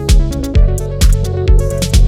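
Electronic background music with a steady kick-drum beat, about two beats a second, over sustained synth chords.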